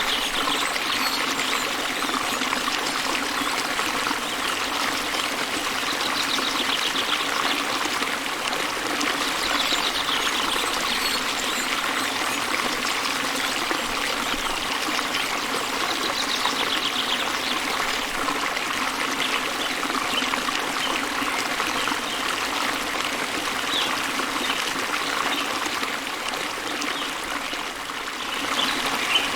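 Small waterfall spilling into a river: a steady, even rush and trickle of flowing water. Faint bird trills rise above it now and then.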